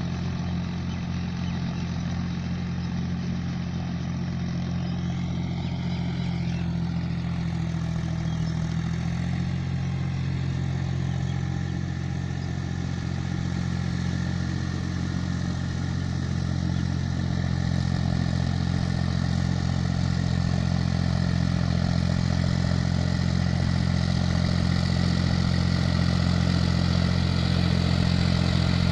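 Powertrac Euro 45 Plus tractor's diesel engine running steadily as it pulls a rotary tiller through the field, getting louder as it comes closer in the second half.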